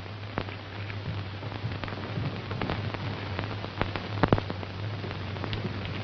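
Steady hiss and crackle of a worn old film soundtrack over a steady low hum, with scattered clicks and a sharper pop about four seconds in.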